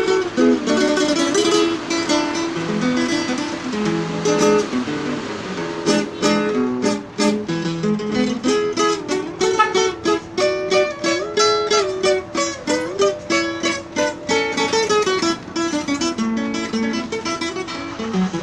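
Nylon-string classical guitar played solo, a picked melody over chords with frequent quick strums.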